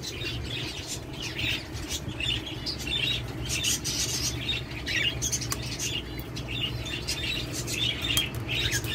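Aviary cage birds, cockatiels among them, chirping in a busy mix of short, high calls over a steady low hum.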